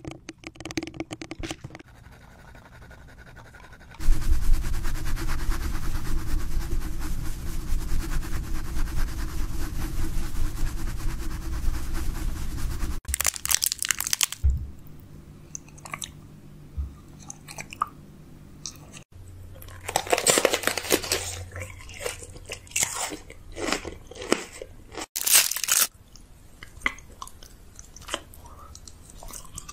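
Close-miked eating: food being bitten, crunched and chewed right at the mouth. A long, dense stretch of crunching gives way to shorter bouts with pauses between.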